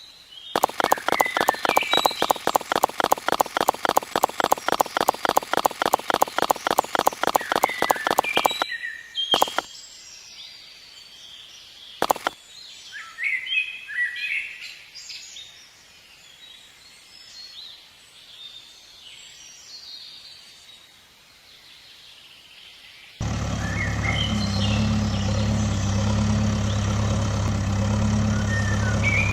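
A fast, even clicking, about six clicks a second, runs for roughly eight seconds and stops. Birds then chirp over quiet background noise. Near the end a steady engine-like hum cuts in suddenly.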